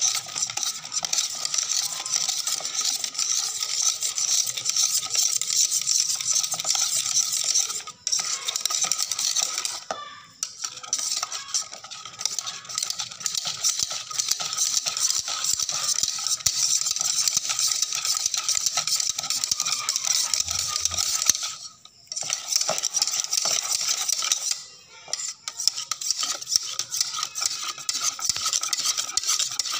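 A wire whisk beating thick sweet-martabak batter in a bowl, a fast wet slapping with the wires clicking against the bowl's side. The whisking stops briefly a few times.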